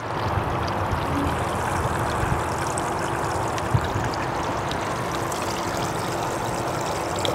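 Water pumped up from the pond rushing and splashing steadily out of a PVC pipe into a homemade five-gallon bucket filter, just after the pump has been switched on. A faint steady hum runs beneath it.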